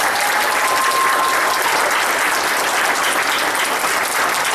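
Wedding congregation applauding just after the couple's kiss: dense, steady clapping, with a thin held whistle-like note over it in the first second and a half.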